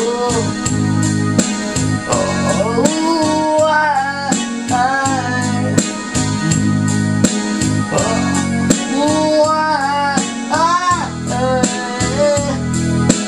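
Band music: electric piano chords and steady drum hits under a lead melody line that bends and slides between notes.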